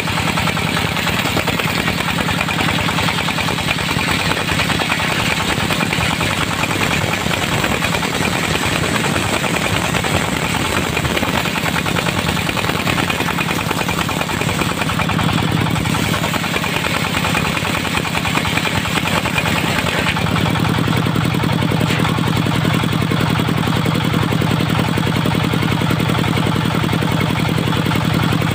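Diesel engine of a portable circular-saw sawmill running steadily with a rough mechanical hum. About twenty seconds in, the sound shifts: the low hum grows stronger and the higher rasp eases.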